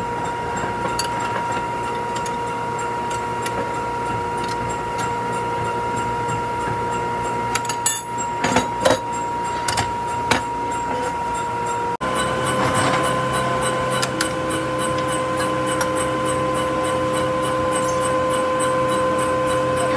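A workshop machine running with a steady whine, with a few sharp knocks about eight to ten seconds in. About twelve seconds in the whine steps slightly higher and a little louder.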